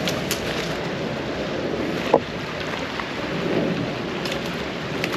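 Shallow brook water rushing steadily down a concrete channel, with one short click about two seconds in.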